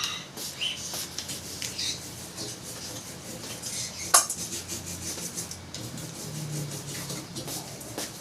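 Scraping and light clinking of metal parts being handled, with one sharp click about four seconds in.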